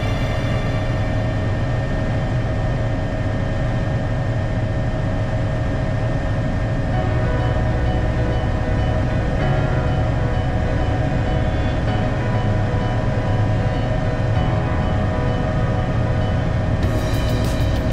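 Cabin noise of an Agusta AW119 Koala single-turbine helicopter in cruise flight: a loud, steady drone of rotor and engine with a constant mechanical whine over a deep rumble.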